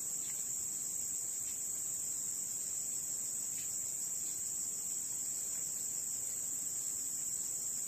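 Steady, high-pitched drone of a chorus of insects, unbroken throughout.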